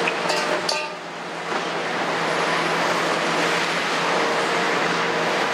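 Kobelco 350 crawler excavator's diesel engine and hydraulics running steadily as the machine swings its raised boom and empty bucket away from the truck after dumping a load. A couple of sharp knocks in the first second, and the engine dips briefly before coming back up about a second and a half in.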